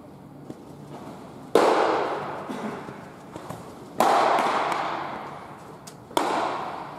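Pitched baseballs smacking into catchers' leather mitts: three sharp pops a little over two seconds apart, each ringing on in a long echo.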